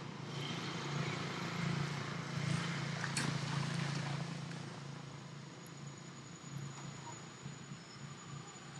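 Outdoor ambience with a steady low hum, strongest in the first few seconds and fading after, over a faint even hiss. A single sharp click about three seconds in.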